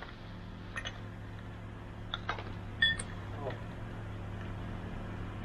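Steady low hum, with a few faint clinks and knocks of scrap and debris being handled, some of them ringing briefly like metal.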